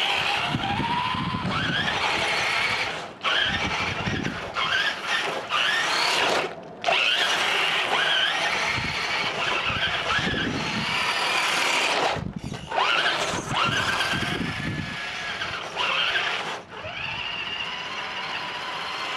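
Radio-controlled rock crawler's electric motor and geared drivetrain whining, rising and falling in pitch as the throttle changes, with the tyres scrabbling over the ground. The sound is cut off abruptly several times.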